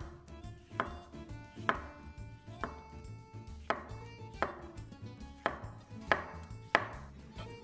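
Chef's knife slicing cremini mushrooms on a wooden cutting board: each cut ends in a sharp knock of the blade on the board, about once a second at an uneven pace.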